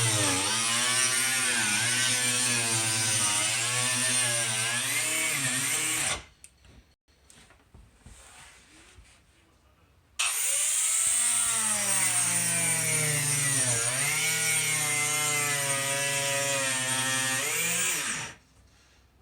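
A power tool's motor running in two long runs with a short pause between, its pitch dipping and recovering as it loads up, as when cutting.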